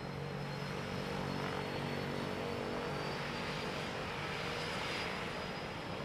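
A floatplane's propeller engine running steadily, a continuous drone with a low hum.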